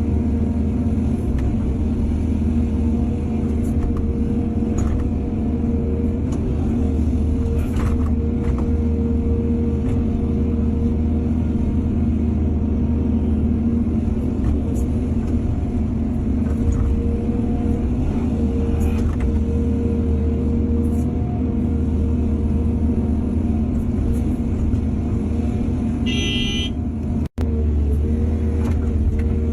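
Excavator diesel engine running steadily, a low hum with occasional short knocks. A brief high tone sounds about 26 seconds in, and the sound drops out for an instant just after.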